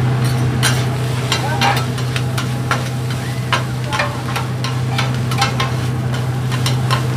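Fried rice sizzling on a steel flat-top griddle while two metal spatulas scrape and clack against the plate in quick, irregular strokes, over a steady low hum.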